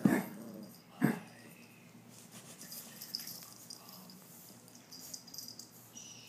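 A dog barks twice in short sharp barks about a second apart. Fainter scratchy sounds follow.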